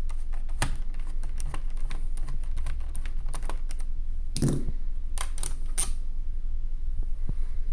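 Scattered light clicks and taps of a screwdriver working the keyboard screws on the plastic underside of a ThinkPad T430 laptop, with a brief knock and a cluster of louder clicks about four and a half to six seconds in, over a low steady hum.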